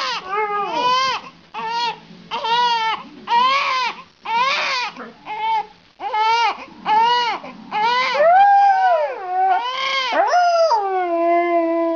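Newborn baby crying in short repeated wails while a Siberian husky howls along with it. Near the end one long howl falls in pitch and then holds steady.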